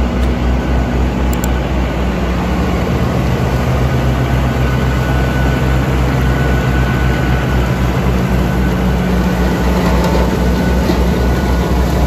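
Claas Arion tractor engine running steadily under load, driving a Tomahawk bale processor through its PTO shaft as the machine chops and blows straw. The sound is a constant low throb with a rushing noise over it.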